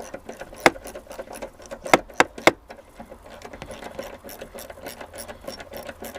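Hand tools on metal under the hood: quick, uneven clicks like a wrench being worked on the battery tray fasteners, with four louder sharp clinks, the first about half a second in and three more in a bunch around two seconds in.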